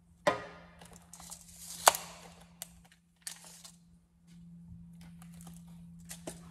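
Handling noise as a tape measure and carbon-fibre intake pieces are picked up and moved on a workbench: scattered knocks and clicks, the loudest a sharp click about two seconds in, with short rustles, over a faint steady hum.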